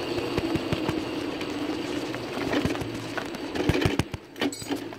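Homemade electric go-kart running over concrete: a steady hum with scattered clicks and knocks from the wheels and frame. The noise drops off about four seconds in, followed by a few separate louder knocks.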